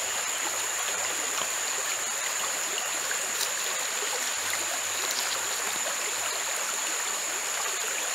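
Steady rushing of a flowing stream, with a thin steady high-pitched whine over it.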